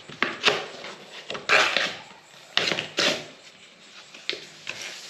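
Paper crinkling and rustling in the hands in a run of short, sharp crackles, loudest about a second and a half in and again near three seconds, as a sheet is folded into a makeshift funnel for pouring engine oil.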